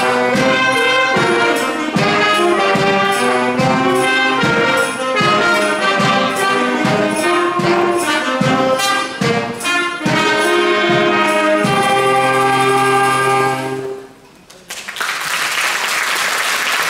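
Brass-led instrumental music with a steady beat, ending on a long held chord; after a brief pause, applause starts near the end.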